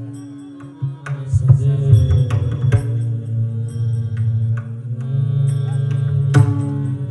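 Abhang devotional music: pakhawaj drum strokes, irregularly spaced and sharp, over steady held pitched tones.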